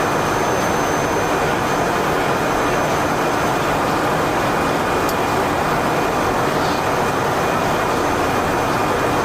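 Steady, unbroken noise of an Airbus A400M Atlas's four turboprop engines running.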